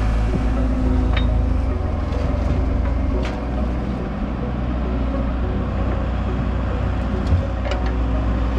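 Old farm excavator's diesel engine running steadily, with a few faint clicks.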